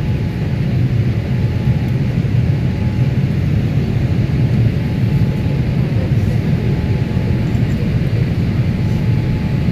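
Boeing 787 Dreamliner cabin noise during the descent: a steady low rumble of the jet engines and airflow heard from a window seat.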